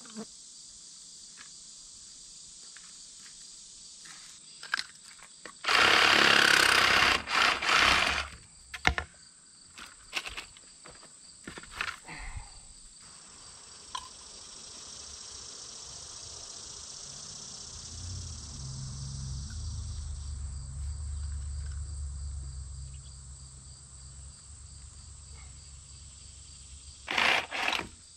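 Crickets and other insects drone steadily while PVC pipe is handled: a loud burst of noise of about two and a half seconds some six seconds in, then scattered knocks and clicks. A low rumble swells and fades in the second half, and two short loud noises come near the end.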